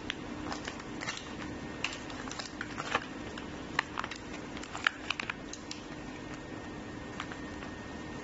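Clear plastic blister packaging crinkling and crackling in irregular sharp clicks as it is pulled and peeled away from its paper card, with a steady low hum underneath.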